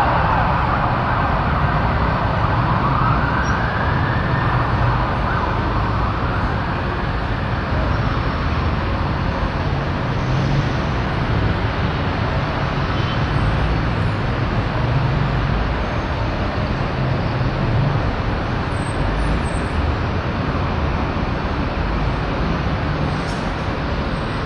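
Steady low rumble of road traffic, with an emergency-vehicle siren wailing up and down in pitch over the first several seconds before fading into the background.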